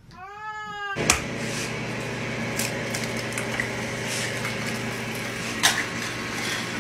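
A cat's single meow, rising then falling in pitch. Then, from about a second in, an egg sizzling in a frying pan: a steady hiss with scattered crackles and a few sharp pops.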